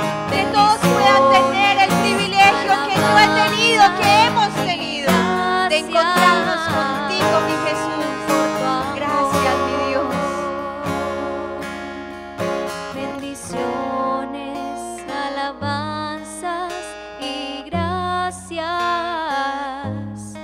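Worship song: a voice singing over strummed acoustic guitar, the music growing softer in the second half.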